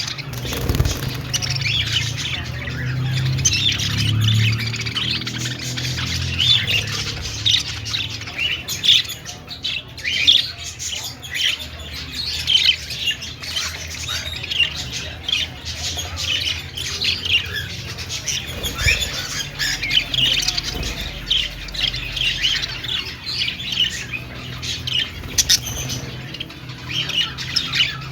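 A flock of budgerigars chirping and warbling together, many short overlapping chirps with no break. A low hum sits underneath during the first few seconds.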